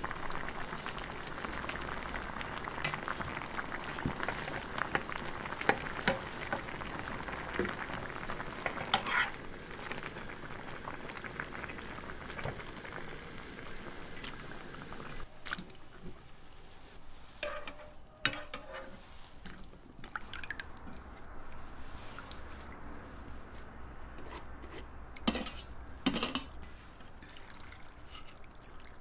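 Water boiling in a frying pan full of burdock root strips: a steady bubbling with small pops. About halfway through the bubbling stops, leaving scattered clinks and knocks. Near the end comes a short splash of water poured over the boiled burdock.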